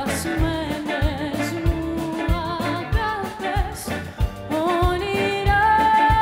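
Live retro swing band playing: a woman singing with vibrato over a steady drum beat, with upright bass, guitar and saxophone.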